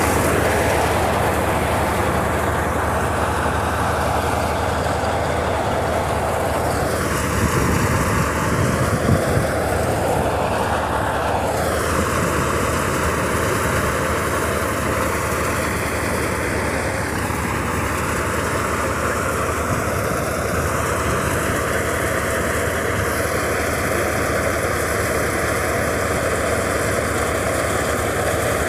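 Tractor-driven chickpea thresher running steadily as chickpea plants are fed into it, a dense, continuous mechanical din with the tractor engine underneath.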